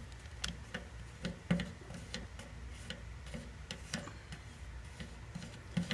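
Faint, irregular light ticks and taps, about two or three a second, from soldering a tin-can patch onto a motorcycle's steel fuel tank.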